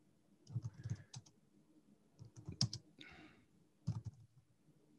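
Faint, irregular keystrokes on a computer keyboard as Japanese text is typed into a document, with the loudest strokes about two and a half and four seconds in.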